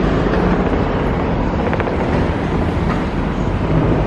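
Street traffic: a steady rumble of vehicle engines, with a low engine hum underneath.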